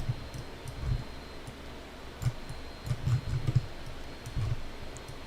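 Scattered faint computer mouse clicks during on-screen sculpting, with a few irregular dull low thumps.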